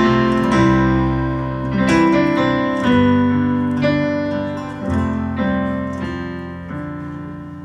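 Closing bars of a slow country song on a Yamaha stage keyboard with a piano sound, backed by acoustic guitar: a few held chords, each struck and left to ring, the whole fading away toward the end.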